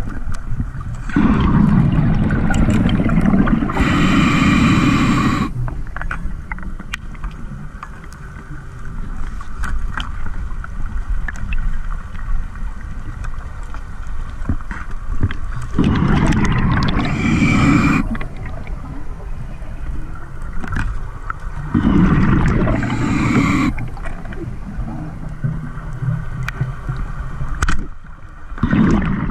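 Scuba diver breathing underwater through a regulator: three long rushes of exhaled bubbles, each with a hiss, several seconds apart, and a fourth starting at the end. Scattered small clicks between them.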